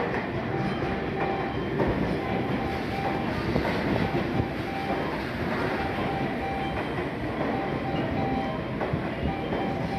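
Sotetsu new 7000 series electric commuter train pulling in along the platform and slowing, its wheels clattering over the rail joints. A short beep repeats about once a second the whole time.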